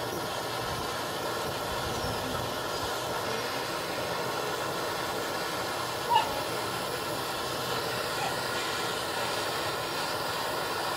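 Gas torch flame hissing steadily while it heats a thin copper water pipe to bring the joint up to soldering temperature. One brief sharp sound stands out about six seconds in.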